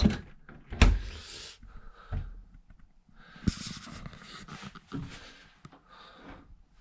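A small hotel-room refrigerator's door shutting with a sharp thud less than a second in. Then soft rustling, breath-like noise close to the microphone, with a few light clicks.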